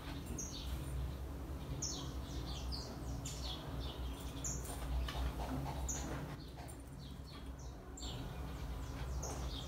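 Birds chirping, one repeating a short high note about every second and a half among quicker falling chirps, over a low steady hum.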